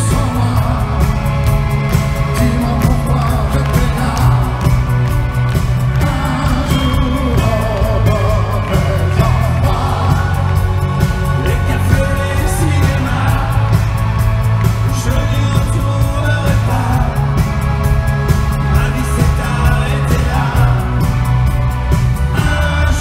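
Live pop song in an arena: male voices singing into handheld microphones, taking turns, over a loud band backing with heavy bass and a steady beat.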